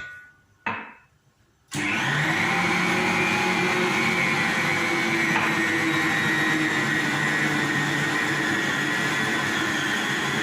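Two short knocks, then an electric mixer switches on about two seconds in and runs steadily at high speed, mixing chapati dough of flour, ghee and water.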